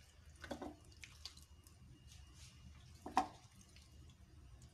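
Raw chicken cubes dropped by hand into a plastic chopper bowl: a few faint, wet plops, the clearest about half a second in and about three seconds in.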